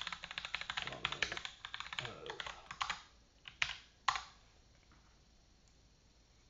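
Typing on a computer keyboard: a quick run of keystrokes for about three seconds, then a few single, louder clicks before it goes quiet.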